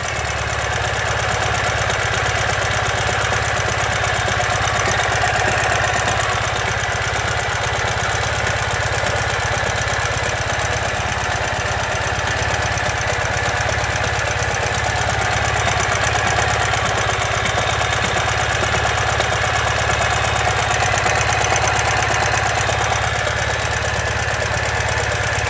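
2015 Ural Ranger's air-cooled flat-twin engine running steadily at idle with a rhythmic knocking clatter: the sound of a collapsed front crankshaft bearing.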